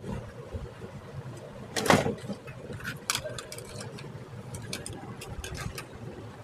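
Hands working wiring and connectors on a small electronics board: a loud knock about two seconds in, a couple of sharper clicks a second later, then light scattered ticks, over a low steady background rumble.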